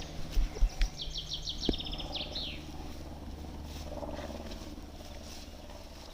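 A songbird sings a fast trill of rapid repeated high notes that runs for about a second and a half, starting about a second in. A few low thumps come in the first second.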